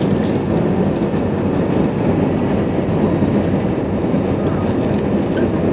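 Steady cabin noise of an Airbus A320 descending on approach to landing, heard inside the cabin beside the wing engine: a dense, even rumble of engine and airflow.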